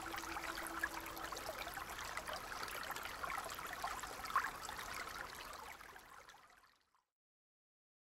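Small spring meltwater brook babbling over stones and debris, with little splashes, fading out to silence about six and a half seconds in.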